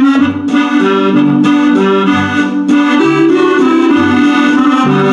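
Roland FR-4X digital accordion playing a waltz in its musette register: held right-hand chords over bass notes that alternate about once a second.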